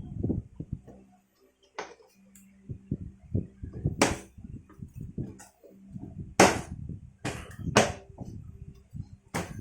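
Irregular knocks and clinks of tools and metal parts being handled on a rice cooker, a handful of sharp ones standing out, over a faint steady hum.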